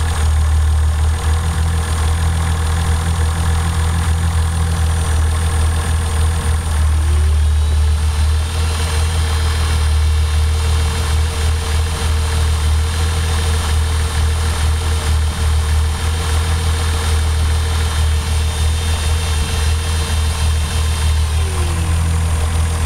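Toyota 7M-GTE turbocharged inline-six idling steadily while misfiring on cylinder 1. A whine rises in pitch about seven seconds in, holds, and drops away near the end.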